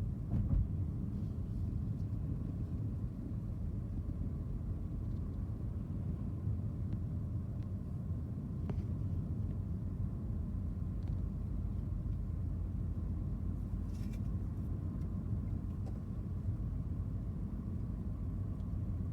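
Steady low rumble of road and engine noise inside a moving Ford car's cabin, with a few faint, scattered clicks.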